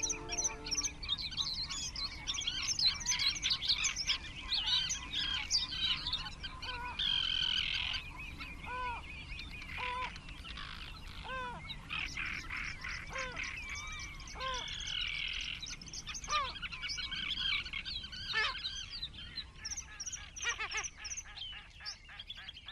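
Many small birds chirping and singing together, with a short, lower arched call repeated about once a second through the middle stretch.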